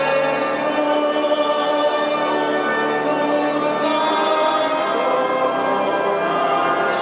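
Choir singing a slow hymn with sustained chords, accompanied by a Walcker pipe organ, the sound carrying the long reverberation of a large stone cathedral nave.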